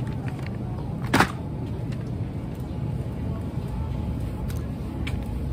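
Shopping cart rolling on a store floor with a steady low rumble, picked up close through the cart's frame, and one sharp knock about a second in.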